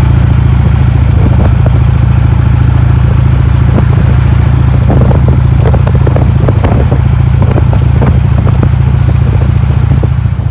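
Motorcycle engine running steadily while riding, a loud constant low hum, with a run of short clicks or rattles in the middle.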